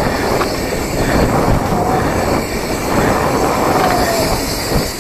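Mountain bike rolling fast down a bumpy grass-and-dirt trail, picked up close on the moving bike: a steady rattling rumble of tyres and bike parts over rough ground, with two faint brief squeals about two and four seconds in.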